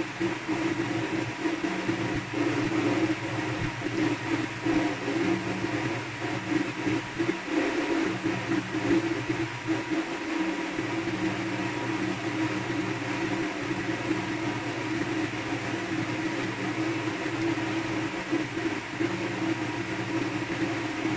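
Steady mechanical drone: a low hum with a rushing whir over it, running without a break.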